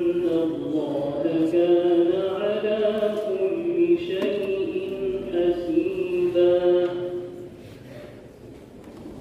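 A young man reciting the Quran in the melodic chanted style, holding long, slowly bending notes into a microphone. He pauses for breath about a second and a half before the end.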